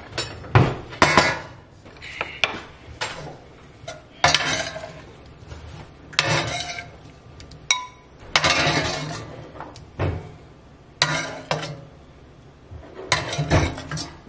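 A metal spoon scraping and clinking against a stainless steel skillet while cooked shrimp and lobster pieces are scooped out into a glass bowl: a run of separate scrapes and sharp clinks every second or two.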